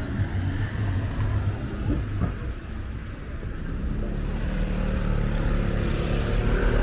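Street traffic: a vehicle's low engine rumble, growing louder over the last few seconds as it draws near.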